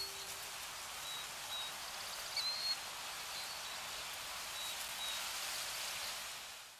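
Steady outdoor ambience hiss with a few faint, high bird chirps scattered through it, fading out at the end.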